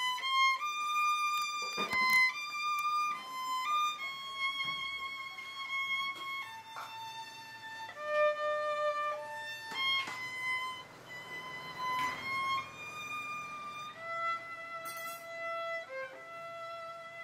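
Solo violin played with the bow: a slow melody of long held notes, one at a time.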